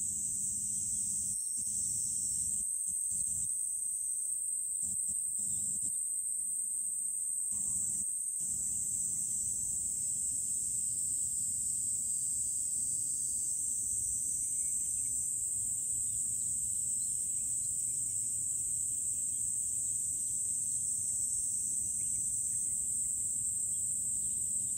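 A steady, high-pitched chorus of insects in the trees, over a faint low hum.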